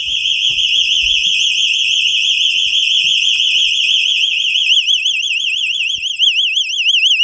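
Vivint home alarm siren sounding after the armed system's front door sensor is tripped: a loud, high-pitched warbling tone whose warble speeds up toward the end. It cuts off suddenly when the system is disarmed.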